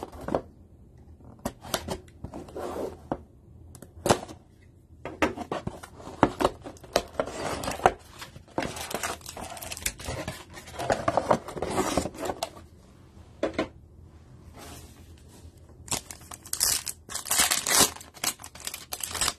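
A cardboard trading-card booster box being opened and handled, then its foil card packs torn open. The sound is irregular tearing, scraping and crinkling, busiest in the middle and again near the end.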